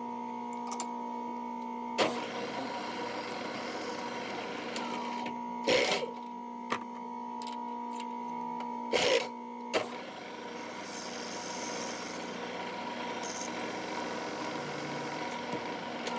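Machine tool drilling holes in a metal part: a steady motor hum with stretches of cutting noise and a few loud knocks.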